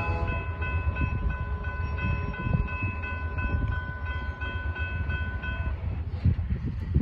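Union Pacific diesel locomotive's multi-chime air horn sounding one long chord that cuts off about six seconds in, over the low rumble of the locomotive. A few low thumps follow near the end.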